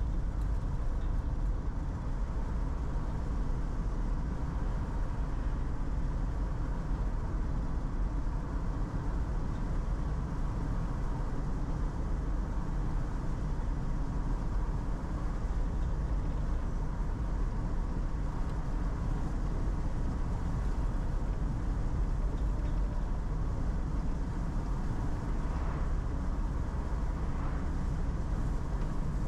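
Steady engine and tyre noise inside a car's cabin as it drives along a paved road at a constant speed, a low rumble that does not change.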